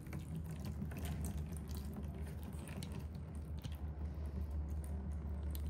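Engine oil dripping off an upturned oil pan into a pool of oil, with light scattered clicks of a tool working inside the pan, over a steady low hum.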